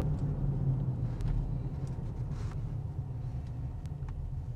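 Steady low rumble of a car driving, heard from inside the cabin, easing a little toward the end, with a few faint ticks.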